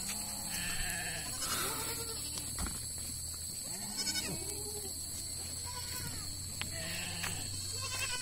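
Goats, kids among them, bleating over and over, short calls that rise and fall in pitch, some higher and some lower, coming every second or two and sometimes overlapping.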